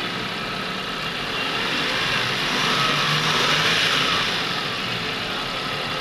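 Mitsubishi eK Wagon's freshly overhauled three-cylinder engine idling just after its first start. It gets a little louder for a couple of seconds in the middle, then settles back.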